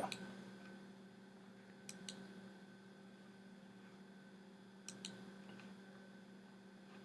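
Near silence: a faint steady electrical hum, with two pairs of faint clicks, about two seconds in and again about five seconds in.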